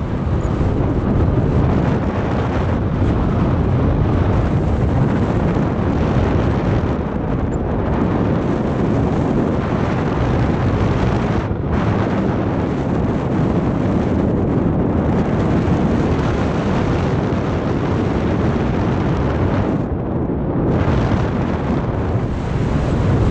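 Wind rushing over the microphone during paraglider flight: a loud, steady buffeting rush that thins briefly twice, about halfway through and near the end.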